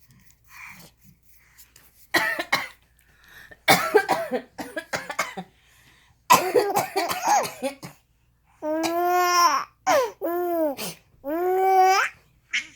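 Several bursts of coughing, then a baby giggling in high, squealing laughs from about 9 seconds in, delighted by the coughs.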